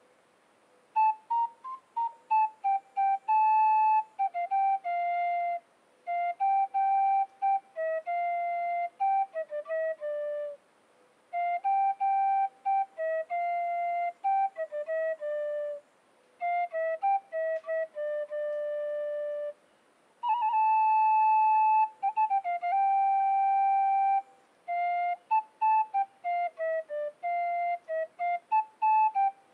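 A small end-blown flute played solo: a slow, simple melody of held and short notes, in phrases separated by brief pauses.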